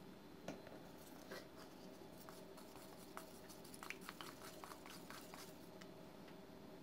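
Faint small clicks and light scraping of a craft stick stirring a toothpaste mixture in a bowl, crowded together in the middle stretch, over a low steady room hum.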